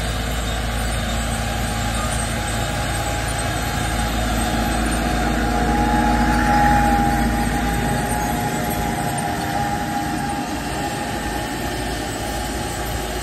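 The engine of a 1,100 hp NEXAT tractor running steadily as the tractor drives past pulling a planter, with a high whine over the engine note. It grows louder as the tractor passes closest, about halfway through, then fades a little.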